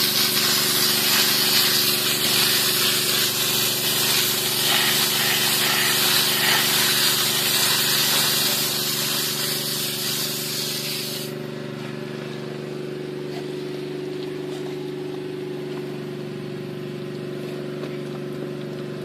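High-pressure water jet from a hand-held hose nozzle spraying onto rock and gravel: a loud, steady hiss. About eleven seconds in it drops sharply to a softer wash, over a steady low hum.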